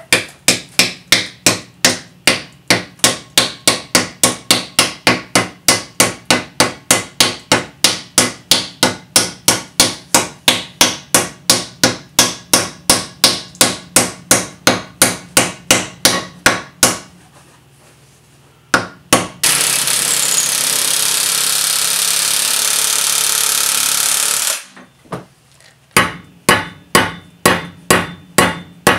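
Rapid, steady hammer blows, about three a second, on a steel axe head, driving it down onto its new wooden haft. After a brief pause there is a steady loud hiss for about five seconds. Then the hammering resumes, driving a metal wedge into the top of the haft in the axe eye.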